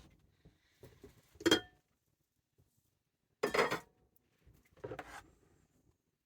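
Kitchen utensils and dishes clinking and scraping: three brief clatters, the loudest about a second and a half in with a short metallic ring, another about three and a half seconds in, and a fainter one near five seconds.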